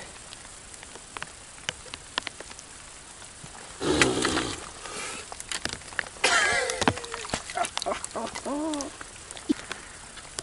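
A hooked bream splashing at the water's surface twice as it is drawn in and netted at the bank, about four and six and a half seconds in, over steady rain pattering. A short wordless voice sound follows near the end.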